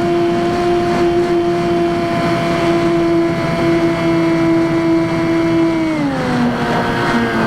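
Electric motor and propeller of a Skywalker X5 flying-wing model plane running at steady speed, then dropping in pitch about six seconds in as the throttle eases back.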